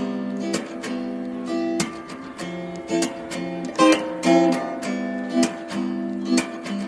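Acoustic guitar music with rhythmically strummed chords.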